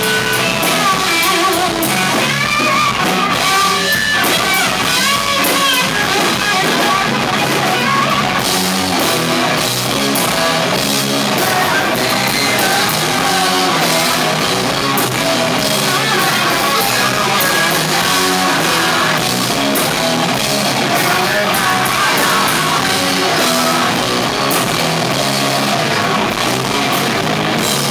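Rock band playing live, with electric guitars and a drum kit, recorded on a small camera that can't handle the volume, so the sound is distorted and thin in the bass.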